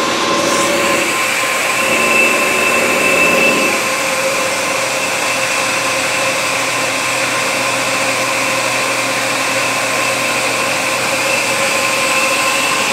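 Centre lathe running steadily while turning a metal bar, a loud even machine hum with steady whining tones over a hiss.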